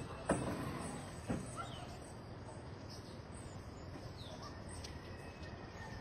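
Faint, scattered short bird chirps over a low steady background noise, with two sharp knocks about a second apart near the start.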